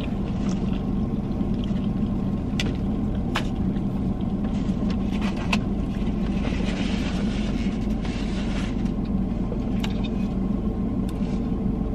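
Steady hum of a car running while parked, heard from inside the cabin, with a few soft clicks from eating.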